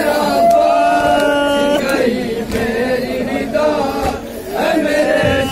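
A group of men chanting a noha, a Shia mourning lament, in unison behind a lead voice, with long held notes. The chant eases off briefly a little after four seconds, then picks up again.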